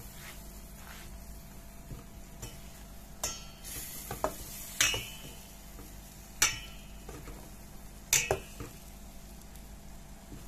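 Metal ladle stirring masala fish curry in a steel pot, knocking and scraping against the pot in several sharp clinks, over a faint steady sizzle of the frying masala.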